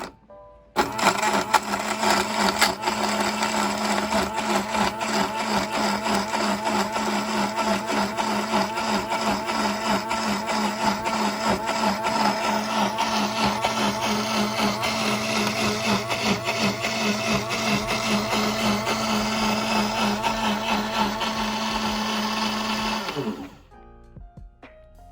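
Mini blender motor starting about a second in and running steadily while it blends an orange with ice cubes into juice, then cutting off suddenly near the end.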